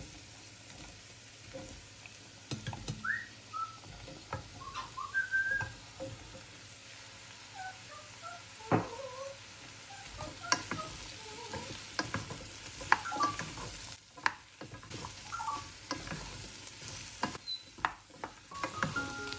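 A spoon stirring and tapping against a cooking pot over a faint steady sizzle, with many sharp clicks. Short chirping whistles, from a small pet bird, are scattered throughout.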